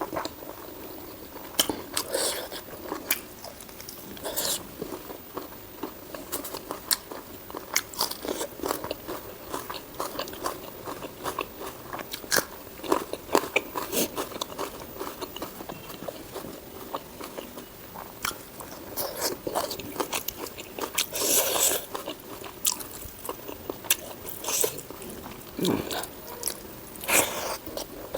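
A person chewing and biting mouthfuls of spicy pork and rice close to the microphone, with irregular sharp clicks and smacks throughout and a few louder bites.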